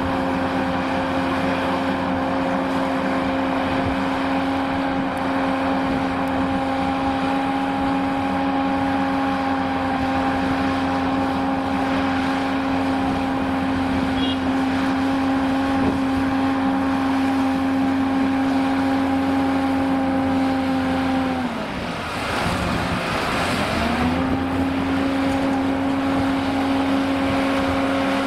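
Liebherr R980 SME front shovel's diesel engine running at a steady high speed while it works. About three-quarters of the way through, the engine note sags sharply and climbs back within about two seconds, with a short rush of hiss.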